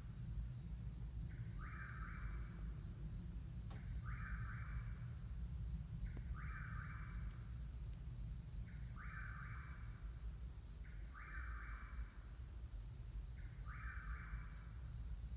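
Night insects calling: a cricket chirping steadily, about four chirps a second, and another insect giving a buzzy call about a second long every two and a half seconds, over a steady low rumble.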